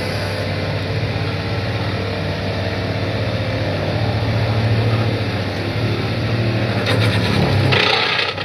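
Excavator-mounted vibratory pile driver shaking a steel sheet pile, with the excavator's diesel engine running under load: a steady, heavy mechanical hum. A short burst of harsher noise comes near the end.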